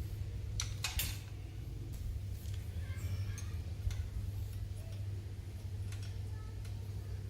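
Scattered light metallic clicks and taps of small tools and parts being handled on a workbench, over a steady low hum.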